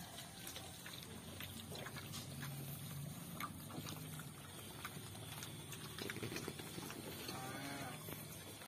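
A herd of wild pigs feeding: low grunting throughout, with many short clicks of chewing and rooting in the feed. A brief wavering, higher-pitched call comes near the end.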